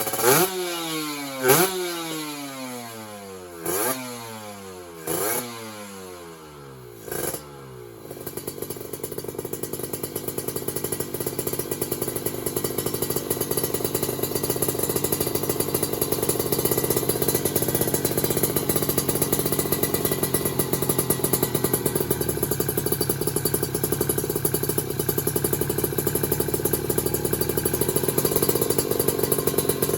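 Two-stroke single of a Kawasaki Ninja RR, running on a PWK 28 carburetor with 38 pilot and 120 main jets and an RC3 Cobra exhaust. It is blipped sharply about five times in the first few seconds, each rev climbing and falling back. It then runs on steadily with a rapid, even pulse that slowly grows louder.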